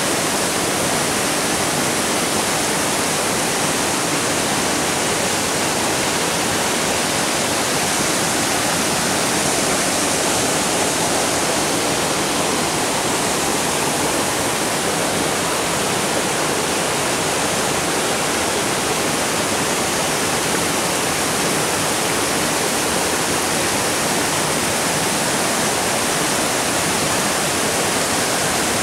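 Stream water rushing steadily, an even, unbroken noise with no change in level.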